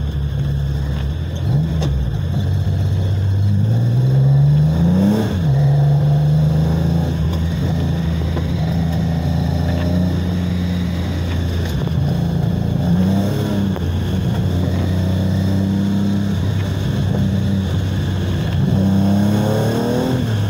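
Datsun 260Z 2+2's straight-six engine heard from inside the cabin under acceleration. The revs climb and drop sharply with an upshift about five seconds in, then hold steady, with a brief rise and fall around thirteen seconds and another climb near the end.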